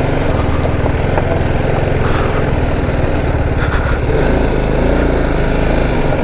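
TVS Apache RR310's single-cylinder engine running at low revs as the bike rides slowly over a dirt track, its note shifting a little with the throttle.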